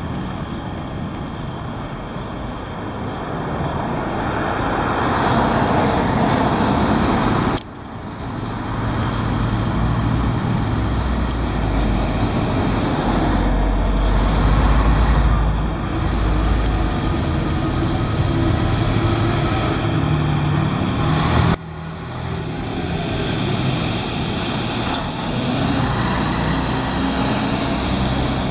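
Scania 113M truck's diesel engine running as it pulls a loaded cement tanker along the street, with a deep drone that swells as it passes close, about halfway through, over general traffic noise. The sound jumps abruptly twice, once about a quarter of the way in and again about three quarters in.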